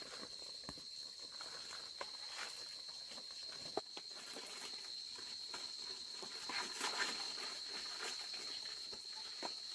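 A steady high-pitched insect drone, with scattered small clicks and knocks, one sharper knock just before halfway.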